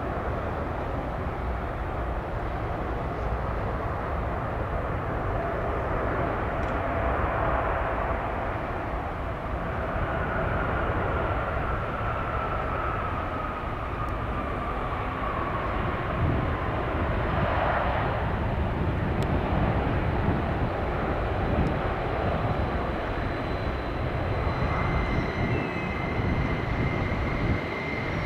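Airbus A380's jet engines running, a steady rushing noise with an engine whine that slowly falls in pitch about a third of the way in. A higher whine comes in near the end.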